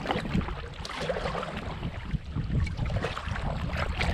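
Kayak being paddled across a lake: irregular splashes and drips of water from the paddle strokes, over a low rumble of wind on the microphone.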